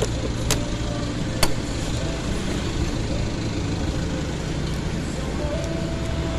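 Rusi Mojo 200cc motorcycle engine running at idle, a steady low rumble, with two sharp clicks in the first second and a half.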